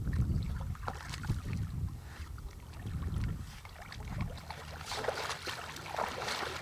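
Water splashing as a hooked brown trout thrashes at the surface, with the splashing crackling most clearly in the last couple of seconds. Wind rumbles on the microphone underneath.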